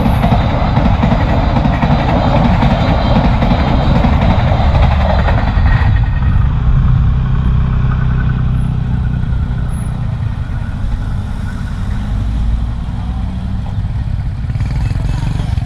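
A train rumbling past a railway level crossing, its noise dropping away about six seconds in, after which motorcycle and car engines are heard running.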